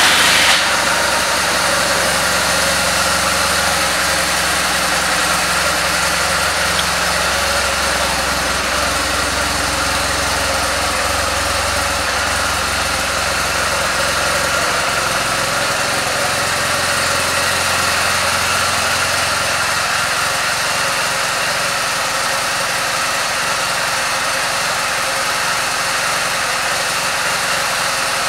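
2006 BMW R 1200 GS's air/oil-cooled boxer twin idling steadily just after being started; the low note shifts about halfway through.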